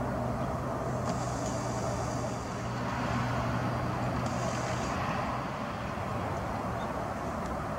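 Steady outdoor rumble of distant vehicle traffic, with a low hum that fades out about five seconds in.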